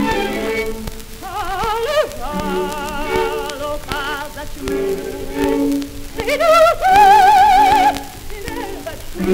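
A soprano singing an operatic aria with wide vibrato, climbing to a long held high note, over an orchestral accompaniment. It plays from an old 78 rpm shellac record, with surface crackle and clicks throughout.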